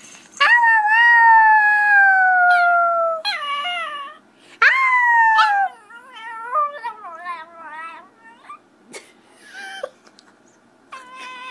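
Small Chihuahua howling. There are two long, high howls that slowly fall in pitch, then a run of shorter wavering notes that trail off, and another howl begins near the end.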